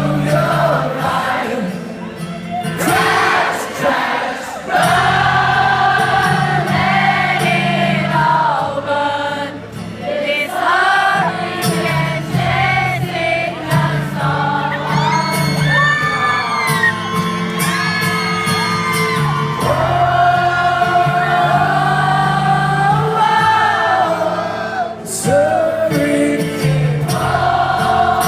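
Live rock band playing, with sustained wordless singing held over steady low droning tones.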